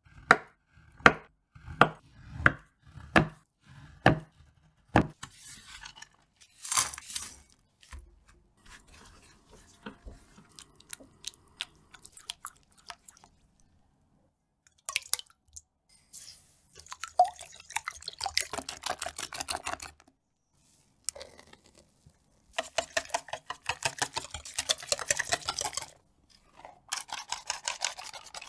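Food-preparation sounds. First a knife chopping a slab of dark chocolate on a wooden board: a run of sharp knocks about every two-thirds of a second for the first five seconds. Then quieter scraping and stirring, and from about halfway on bursts of rapid clicking and scraping, ending with a hand-squeezed flour sifter ticking as it sifts.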